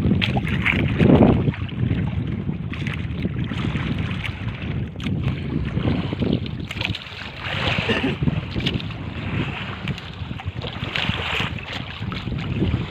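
Wind buffeting the microphone over rough sea waves washing around a small wooden outrigger boat, the sound swelling and easing unevenly, with a few faint knocks.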